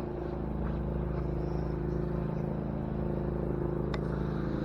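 An engine running steadily at one even pitch, a low constant hum. A single sharp tick sounds near the end.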